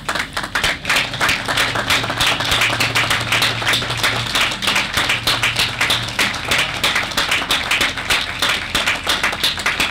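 Audience applauding, many hands clapping at once; it starts suddenly and keeps going steadily.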